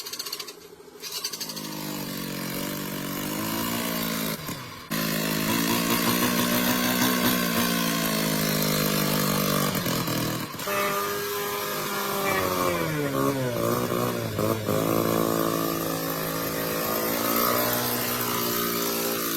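Restored BMW motorcycle engine running and being revved, its pitch rising and falling several times.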